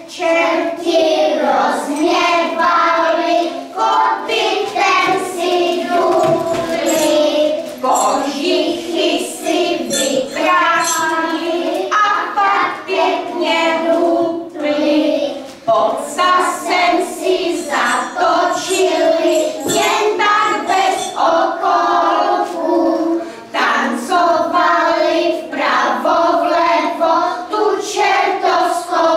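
Children singing a song together.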